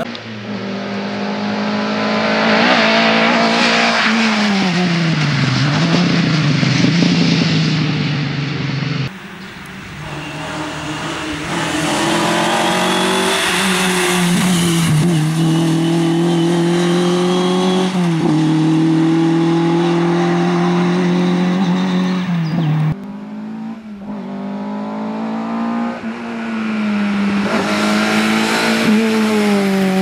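Lada VFTS rally car's four-cylinder engine driven flat out, its pitch climbing under hard acceleration and dropping sharply again and again on gear changes and lifts into corners. The sound jumps abruptly twice as the shots change, at about 9 and 23 seconds.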